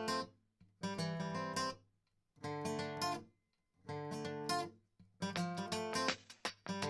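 Background music: acoustic guitar strumming in short phrases, with brief gaps between them.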